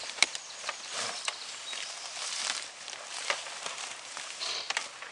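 Rustling and footsteps in leafy undergrowth, with scattered sharp clicks and knocks, as riders shift a dirt bike about by hand with no engine running.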